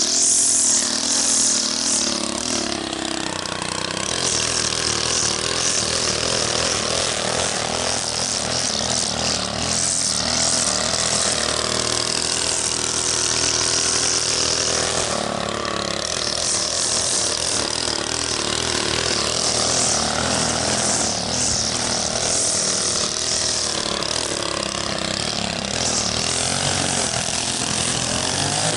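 Gas-powered string trimmer running, its engine speed rising and falling as the spinning line cuts grass, with a strong hiss from the line.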